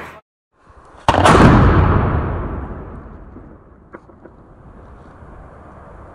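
A 6-inch (150 mm) aerial display shell launched from its mortar: one loud, deep bang about a second in, its boom echoing away over about two seconds.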